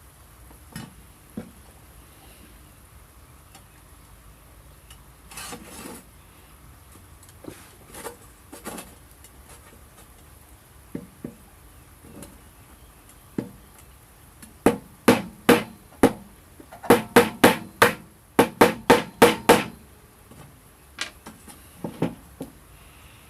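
A series of sharp knocks or strikes. They are scattered at first, then come in quick runs of about three a second in the second half.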